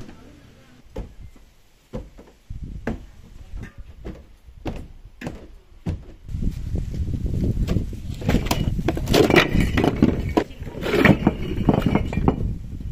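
Footsteps and separate knocks on a wooden staircase, then a long, loud clatter of clay bricks being tipped from a carrying basket onto a brick pile.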